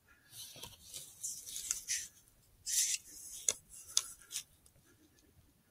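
Faint scratchy rustling in short bursts, with a few light clicks.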